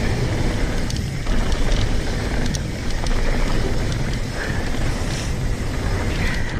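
Mountain bike riding fast down a dirt singletrack, heard through an action camera's microphone: steady wind buffeting with tyres rolling over the dirt, and the bike rattling over bumps in scattered clicks and knocks.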